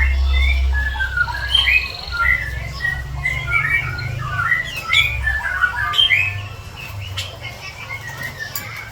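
Javan bush lark (branjangan) singing a fast, jumbled string of short chirps and squawky notes, thinning out after about six seconds. The song is the agitated calling that bird keepers call 'over birahi', an excess of breeding excitement. A low hum runs underneath, strongest in the first two seconds.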